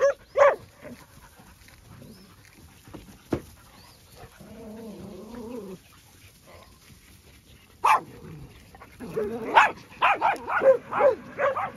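Dogs barking: two sharp barks at the start and another about eight seconds in, with a drawn-out wavering call in the middle, then a quick run of barks and yips from about nine seconds on.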